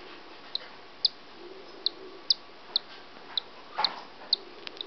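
Cockatiel chick peeping from inside its cracked egg as it hatches: short, high peeps, about two a second.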